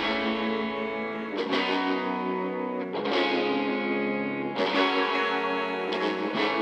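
Background music: sustained guitar chords, with a new chord about every one and a half seconds.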